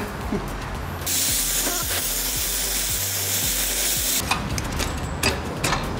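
Oxy-fuel torch flame hissing steadily as it heats the exhaust pipe around a seized oxygen sensor to free it. The hiss starts about a second in and stops a little after four seconds, followed by a few sharp metallic clicks and taps.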